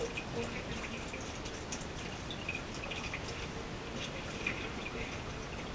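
Water dripping and splashing softly as a cat is lowered into a cooler of bathwater, with scattered small drips and splashes in a small tiled room.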